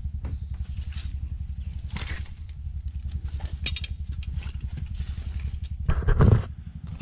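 A steady, evenly pulsing low throb like a small motor running, under footsteps and brushing through mangrove roots and mud, with a louder thump about six seconds in.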